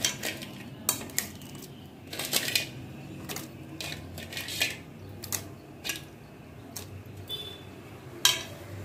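Raw crab pieces being dropped into a clay pot of curry gravy, their hard shells clicking and knocking against the pot and each other. The clicks are irregular, about one or two a second, with the loudest knock near the end, over a low steady hum.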